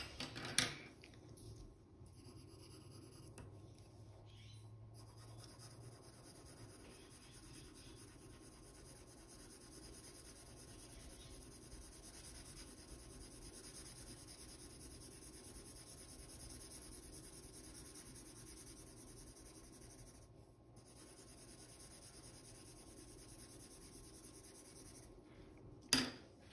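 Faint scratching of a 2B graphite pencil shading back and forth on drawing paper, with one short knock near the end.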